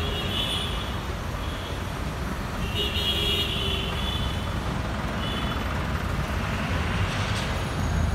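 Busy road traffic with a steady low engine rumble, and vehicle horns sounding a few times, the longest about three seconds in.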